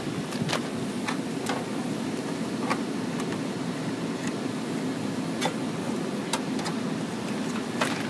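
Irregular sharp metallic clicks and taps of pliers and a screwdriver working a concentric knockout loose from a steel electrical box, over a steady low machinery hum.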